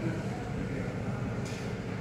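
Steady low rumble of store background noise, with a brief paper rustle about one and a half seconds in.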